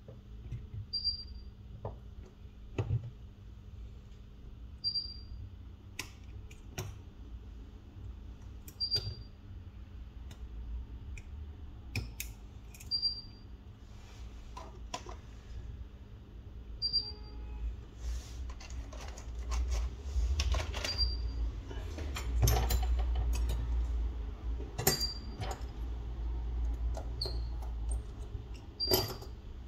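Small, irregular clicks and taps of repair tools and parts on an iPhone 11 being worked on, busier in the second half. A short high chirp repeats about every four seconds.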